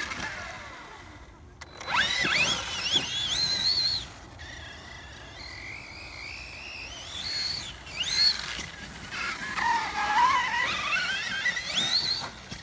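Brushless electric motor of a Redcat Kaiju 1/8-scale RC monster truck whining as it speeds up and slows down. Its pitch wavers and climbs in three runs, and the last one dips low before rising again.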